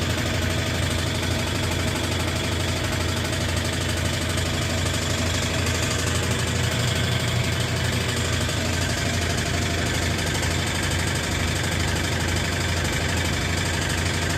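Brastemp 12 kg top-loading washing machine in its spin cycle: a steady low hum with a fast, continuous rattle.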